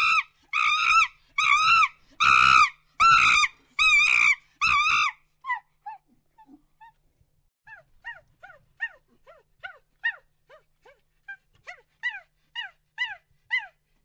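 Rhesus macaque calling. A run of seven loud, high, arched calls comes in the first five seconds, then many fainter, shorter calls that fall in pitch follow through the rest.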